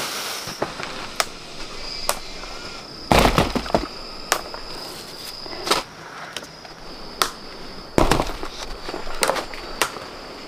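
A series of sharp knocks and cracks at irregular intervals, the loudest coming in quick clusters about three seconds in and again about eight seconds in, over a steady high-pitched whine.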